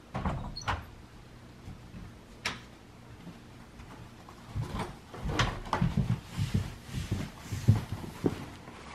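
A door opening with a sharp click and knock at the start, then quick footsteps coming down carpeted stairs from about halfway through, a run of low thumps several a second.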